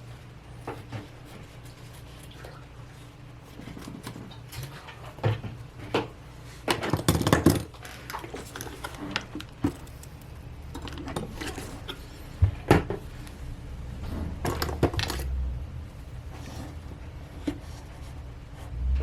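Small metal tools and a phone being handled on a workbench as the charging port is cleaned out: scattered light clicks, taps and scrapes, busiest about seven seconds in and again in the second half.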